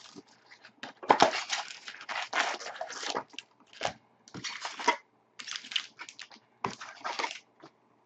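Hockey card pack wrappers being torn open and crinkled by hand, with cards shuffled: a string of irregular crackling, rustling bursts with short pauses between.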